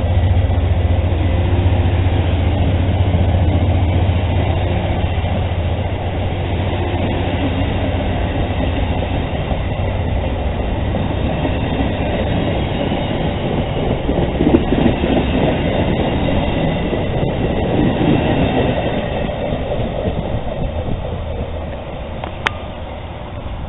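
LRC passenger coaches of a departing VIA Rail train rolling past at close range, their wheels running on the rails over a steady low hum. The sound gradually fades as the train draws away, with a single sharp click near the end.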